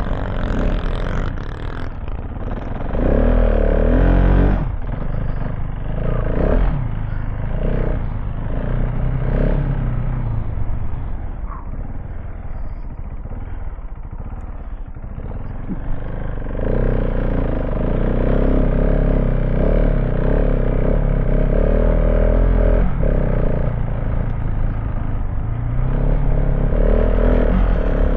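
KTM 690 Enduro R's single-cylinder engine being ridden off-road with an open silencer fitted. The throttle is opened in short bursts early on, eases off for a few seconds, then is held open longer from about sixteen seconds in.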